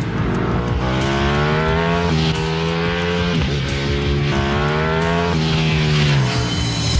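A high-revving racing engine accelerating through the gears. Its pitch climbs, then drops sharply at each upshift, several times over, and winds down near the end. Music plays underneath.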